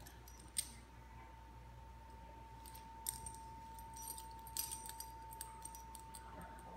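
Light metallic clinks and jingles of a chain leash being handled at a dog's collar, scattered through, with a sharper clink about half a second in. A faint steady hum runs underneath.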